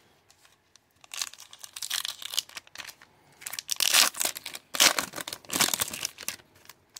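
Foil wrapper of an Upper Deck hockey card pack being torn open and crinkled as the cards are pulled out: an irregular run of crinkling and tearing that starts about a second in and is loudest from about four to six seconds in.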